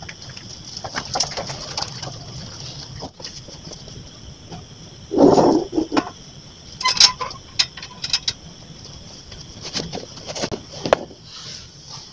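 Metal railing gate being handled and opened: a loud low scrape about five seconds in, then sharp metallic clanks with a brief ring, and a few more knocks near the end, over a steady high hiss.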